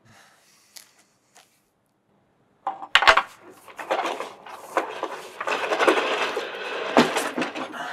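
Metal clattering and rattling as shop-front fittings overhead are worked with a long wooden hook pole. A sharp knock about three seconds in starts a dense run of rattling, with another sharp knock near the end.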